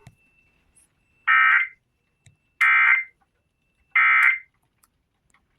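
Emergency Alert System SAME header on NOAA Weather Radio: three identical short bursts of buzzing digital data tones, a little over a second apart. This is the coded header that opens a new alert, here the tornado watch that follows.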